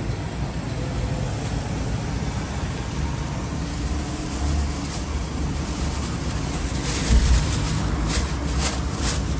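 Steady low roar of the gas burner under a large steaming cooking pot. Near the end, a plastic bag crinkles several times as spice powder is shaken out of it into the pot.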